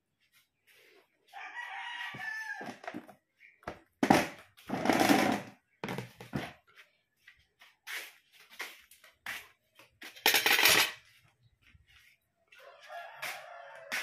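A rooster crowing twice, about a second in and again near the end, the second crow trailing downward in pitch. A few louder short noises come in between.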